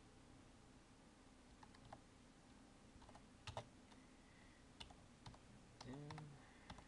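Faint typing on a computer keyboard: a few scattered, irregular key clicks, with more of them in the second half, as a command is entered at the terminal.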